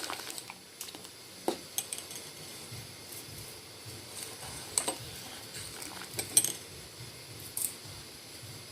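A metal spoon clinking against a pan of milk boiling on a gas stove: scattered sharp clinks, the loudest about five and six and a half seconds in, over a faint steady hiss from the boil.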